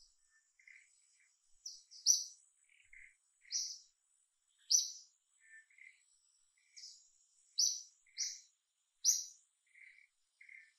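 Wild birds chirping: short, sharp, high chirps at irregular intervals about a second apart, with softer, lower chirps in between, over a faint steady high insect whine.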